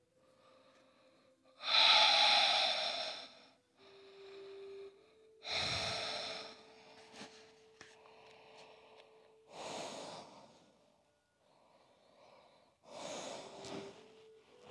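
A person breathing deeply and audibly: about five long, slow breaths with short pauses between them. The first breath, about two seconds in, is the loudest.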